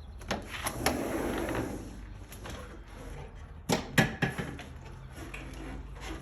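Self-closing vinyl pool-fence gate and its latch: light clicks and a brief scraping about a second in, then three sharp clacks close together about four seconds in, the loudest, as the gate latches.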